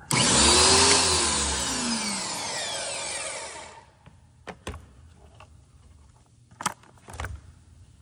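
Greenworks electric pressure washer's motor and pump starting abruptly as power comes on at the GFCI plug, then winding down with falling pitch and stopping about four seconds in. A few light handling clicks follow.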